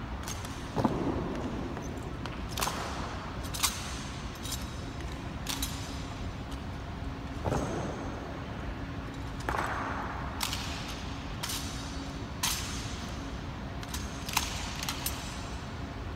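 Honor guards' rifle and boot drill: about a dozen sharp clacks and stamps of rifles and boot heels on a stone floor, spaced irregularly, each ringing on in the echo of a large marble hall.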